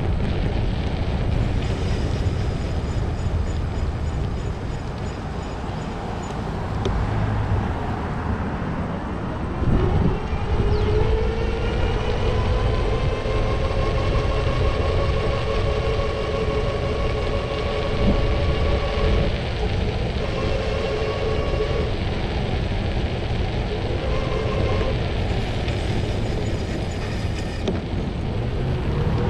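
City street traffic as a steady low rumble. About ten seconds in, a passing vehicle's steady whining hum comes in suddenly, holds for roughly ten seconds, then fades.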